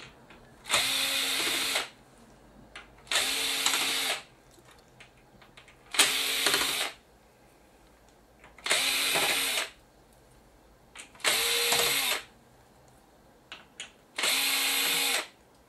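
Cordless power screwdriver backing out screws: six short runs of about a second each at a steady pitch, a couple of seconds apart, with faint clicks between them as the bit is set on the next screw.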